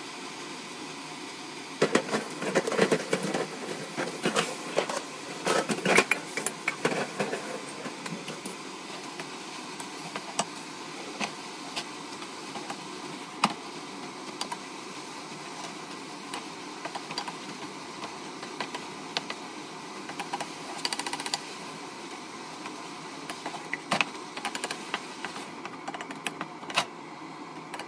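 Stir-frying water spinach in a non-stick wok: a wooden spatula clicks and scrapes against the pan over a steady sizzling hiss. The clatter is busiest in the first several seconds and again near the end.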